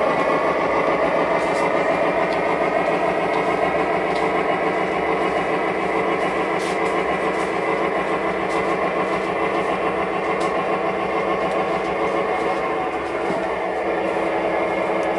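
O-scale model freight train running past on three-rail track, hopper cars and caboose rolling through a hand-laid curved switch: a steady mechanical running sound of wheels and motor with a fast flutter.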